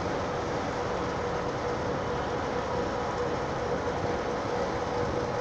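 A fishing boat's engine running steadily underway, heard from its deck: a constant drone with a steady humming tone.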